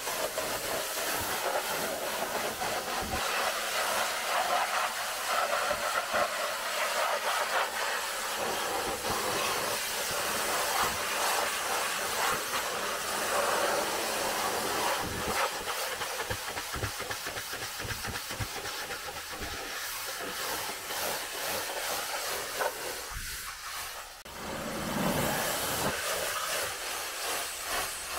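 Pressure washer jet spraying water onto a car's bodywork: a steady hiss of high-pressure spray whose splatter shifts as the wand moves along the car. It dips briefly near the end, then comes back.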